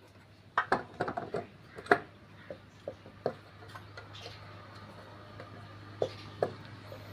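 Light metallic clinks and taps from tools and motorcycle engine parts being handled. There is a quick cluster early on, a few scattered taps after it, and two more about six seconds in, over a faint steady low hum.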